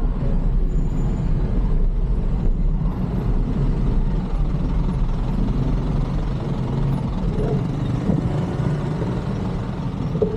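Steady low rumble of road traffic and riding noise, picked up while cycling on a fixed-gear bike through city streets.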